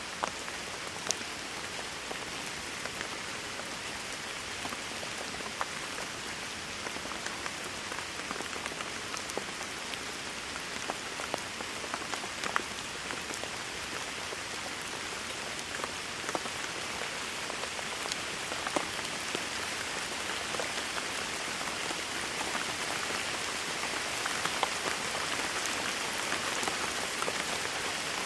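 Steady heavy rain pattering on a surface, with sharp individual drop ticks scattered through it. It grows slightly louder toward the end.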